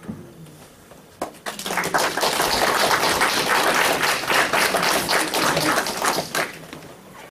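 Audience applauding: dense, fast hand-clapping that starts about a second in and dies away near the end.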